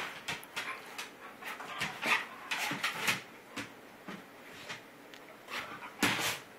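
Pets play-boxing: an irregular run of short, noisy huffs and scuffling clicks, with a louder burst about six seconds in.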